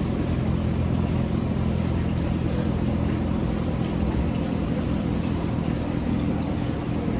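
A steady low mechanical hum with a faint hiss over it, unchanging throughout.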